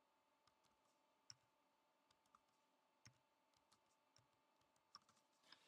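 Faint, scattered computer keyboard keystrokes, about eight light clicks over near silence, with a faint steady tone underneath.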